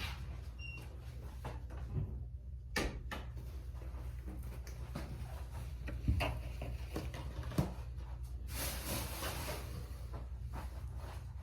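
Handling noise: scattered knocks and clicks over a steady low hum, with a hiss lasting about a second and a half near the end.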